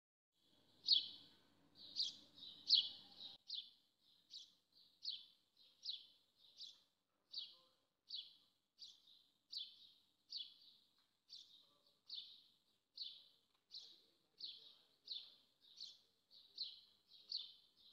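A small bird chirping over and over in an even run, about three short high chirps every two seconds.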